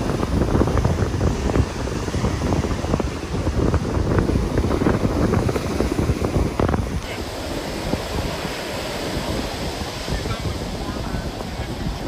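Surf washing up on a sandy beach, with wind buffeting the microphone. The sound shifts about seven seconds in, where the low wind rumble eases.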